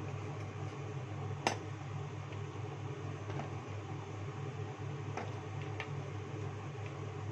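A steady low hum, with a few light knocks and clicks of fruit pieces being handled in a plastic bowl. The sharpest click comes about one and a half seconds in.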